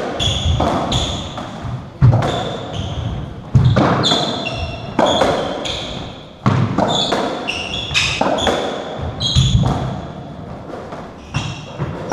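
Racketball rally on a squash court: the ball is struck and smacks off the walls about every second and a half, each hit echoing in the enclosed court. Short high squeaks of court shoes on the wooden floor come between the shots.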